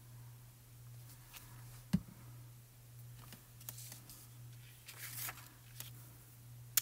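Faint handling sounds of die-cut cardstock and a clear vellum piece being picked up and positioned, with a single light tap about two seconds in and scattered soft rustles later, over a steady low hum.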